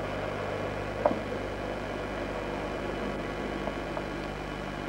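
Steady hum and hiss from an old camcorder's own mechanism, with a faint click about a second in.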